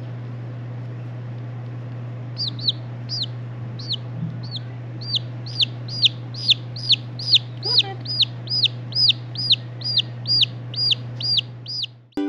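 Chicken chick peeping loudly, a string of short single peeps starting about two seconds in and settling into a steady run of about two a second, over a steady low hum.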